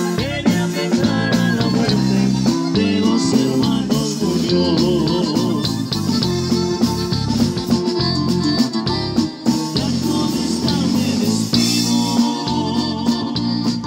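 Live norteño band playing: button accordion, bajo sexto and electric bass over a steady beat.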